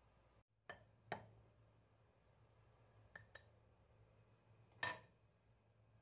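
A few sharp clinks and knocks of kitchenware: a metal whisk and a ceramic mixing bowl against the stone countertop, the loudest a little after a second in and near the five-second mark, over a faint steady hum.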